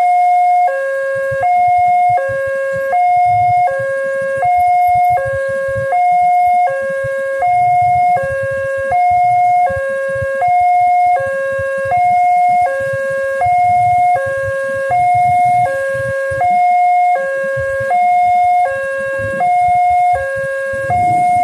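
Railway level-crossing warning alarm sounding from the crossing's signal post, alternating steadily between a lower and a higher electronic tone, each held under a second. It warns that a train is approaching while the barriers are closed.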